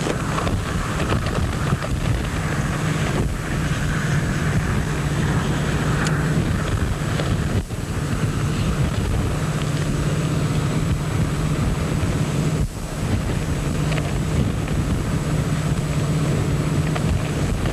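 Wind buffeting a camcorder microphone: a steady rushing noise with a low hum beneath it. The noise dips briefly twice.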